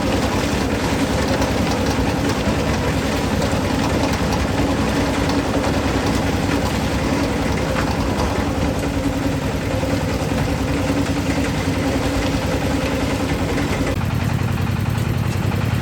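Concrete mixer's engine running steadily; near the end its note drops a little and turns deeper.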